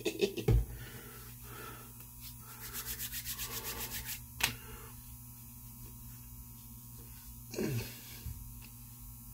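Hands rubbing aftershave into the skin of the face and neck. About two seconds in there is a quick run of rubbing strokes, roughly five a second, followed by a sharp click.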